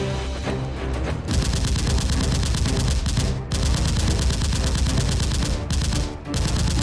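Rapid automatic gunfire, a sound effect laid over Nerf blasters being fired. It starts about a second in and runs in long bursts, with brief breaks near the middle and near the end.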